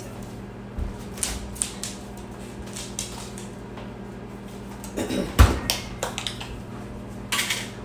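Scattered kitchen handling sounds: light clicks and knocks, then a louder thump about five seconds in and a short rustle near the end, over a steady low hum.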